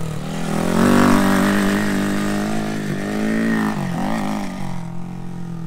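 Honda Monkey 125's single-cylinder engine running through a Supertrapp disc-type exhaust. The revs climb about a second in and hold, dip and pick up again around four seconds, then ease back toward the end.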